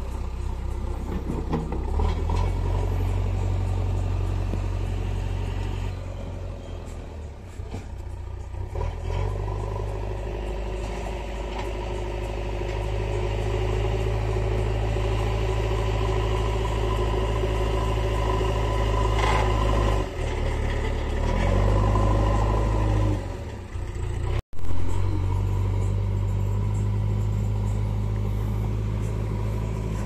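Heavy diesel engines of a JCB backhoe loader and a tractor running, the engine note rising and falling as the loader works its bucket. The sound cuts out for an instant about two-thirds of the way through.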